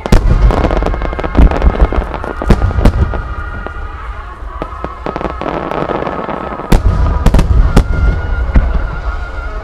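Large aerial firework shells (No. 10, 8 and 7 shells) bursting in rapid succession: a sharp bang right at the start, a run of bangs in the first three seconds and another cluster near the end, with a low rumble between them. Music plays underneath.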